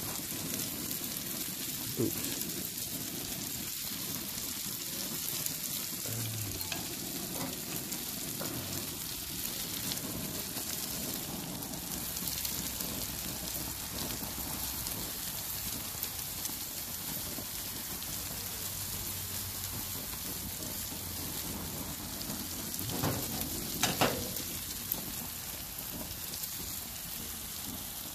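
Food sizzling steadily on a grill: a seasoned steak on the grates and small potatoes with red onion on a griddle pan. A few short knocks break in, the loudest near the end.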